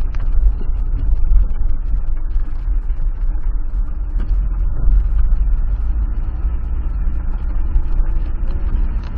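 Car running slowly up a rough, broken road, heard from inside the cabin: a steady low rumble of engine and tyres, with scattered light ticks and knocks.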